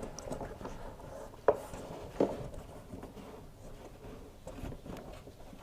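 Faint rubbing and handling noises, with two light knocks about a second and a half and two seconds in, as the drive belt is worked over the motor spindle of an LG tumble dryer.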